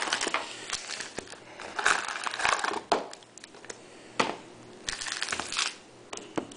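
Foil trading-card packs crinkling as they are pulled out of the box by the handful and set down in stacks on a table, with a few sharp clicks as they land.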